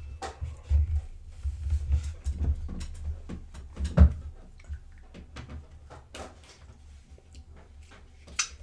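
Scattered low thumps and light knocks of people moving at a wooden table close to the microphone, with one sharper knock about four seconds in.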